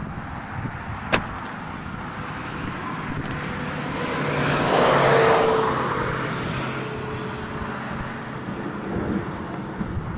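A car passing by on the road, its noise swelling to a peak about five seconds in and then fading away. There is a sharp click about a second in.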